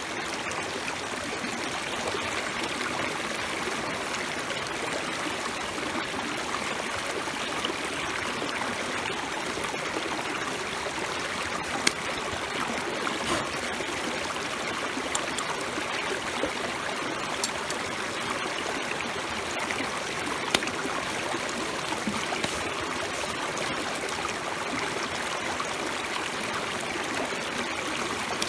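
Food sizzling over a wood fire: a steady hiss with a few sharp pops now and then.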